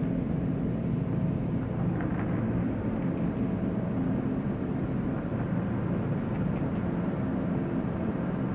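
Steady low rumbling drone with faint held low tones, an unbroken dark ambient sound-design bed.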